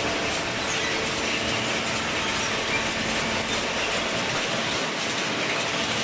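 Steel chain-plate conveyor of a waste-paper baler running under a load of cardboard: a steady, dense mechanical clatter, with a faint steady hum underneath.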